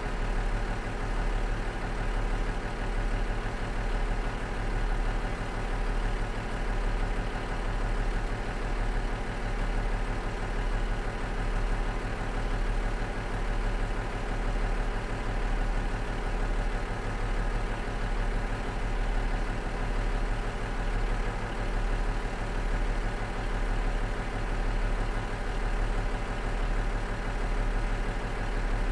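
A Cummins DMF14HZ inline-six diesel engine in a KiHa 47 diesel railcar idling steadily, with an even, slow throb.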